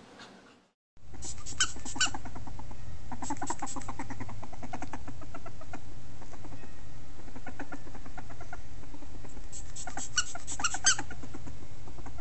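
A ferret at play with a plush toy, making bursts of rapid squeaks and clucks that start about a second in and come again a few seconds apart, over a steady low hum.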